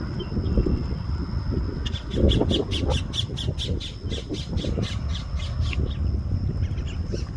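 A bird giving a rapid, even run of short high calls, about six a second, starting about two seconds in and lasting about four seconds, over a steady low rumble.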